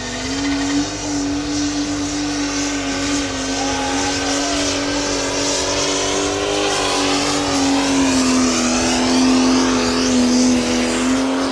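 Competition pulling tractor's engine running flat out at a high, almost steady pitch while it hauls the weight-transfer sled. It runs full and clean, with no misfire.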